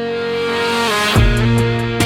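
Music: a held guitar chord swells up, and about a second in a country-rock band with electric guitar, bass and drums comes in, the intro of a new song.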